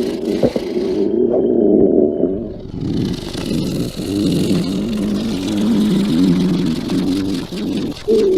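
Exaggerated stomach-growl sound effect: a long, low, warbling rumble that wavers up and down in pitch, easing off briefly a few times before surging again.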